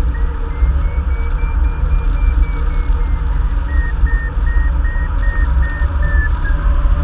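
Heavy wind rumble on the microphone of a hang glider in flight, with a variometer beeping over it: a run of beeps rising and then falling in pitch, then even beeps about two and a half a second. This beeping is the variometer's signal that the glider is climbing in lift.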